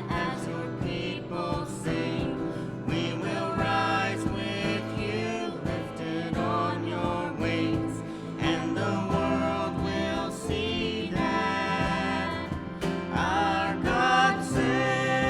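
Music in a gentle country-gospel style with guitar, carried by a sustained melody line with vibrato.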